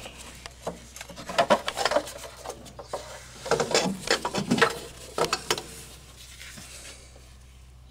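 Hands working a ribbed drive belt onto an engine's pulleys and belt tensioner: irregular clicks, knocks and scrapes for the first five or so seconds, then quieter, over a faint steady low hum.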